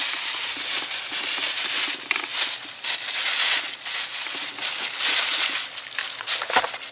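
Thin plastic shopping bag rustling and crinkling as a boxed item is pulled out of it, with a knock near the end.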